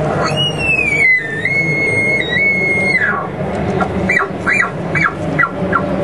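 Bull elk bugle blown on an elk call: one long high whistle that rises, eases down a little and holds for about three seconds before dropping off. It is followed by a run of about six short chuckles that come quicker and fainter toward the end.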